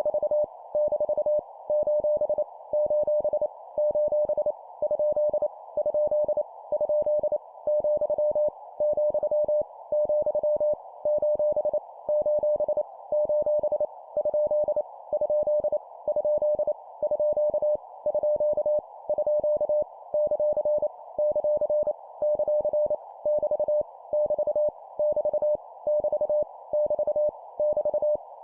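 Morse code (CW) practice tone keyed at 25 words per minute, sending punctuation characters. It is a single steady-pitched beep in rapid dots and dashes over a band of hiss, with short pauses about once a second.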